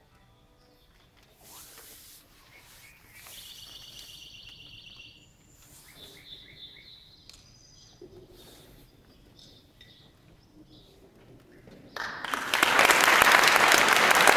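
Sparse, faint bird-like electronic chirps and short high tones from smartphones. Audience applause breaks out about twelve seconds in and is the loudest sound.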